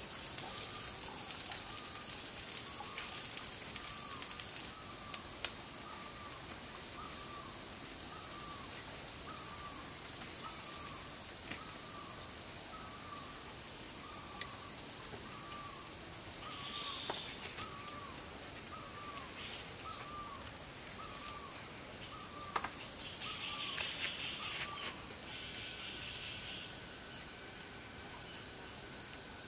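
Forest insects trilling steadily at two high pitches, with a short call repeated about once a second that stops near the end. Scattered faint clicks over the top.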